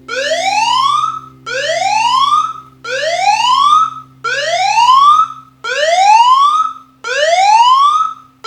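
Smartphone anti-theft app's alarm (Don't Touch My Phone), set off by the phone being picked up: a loud siren of repeating rising whoops, about one every 1.4 seconds.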